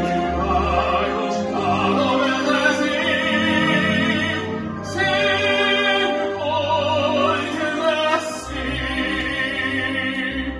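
Operetta singing with a symphony orchestra accompanying: a trained voice holding long notes with wide vibrato over the strings and winds.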